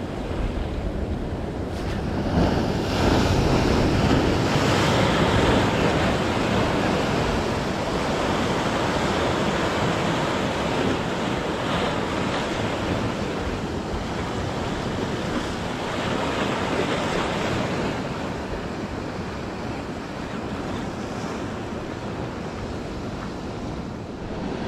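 Sea surf breaking and washing over the rocks just below, with wind buffeting the microphone; the noise swells louder a couple of seconds in and then eases back to a steady wash.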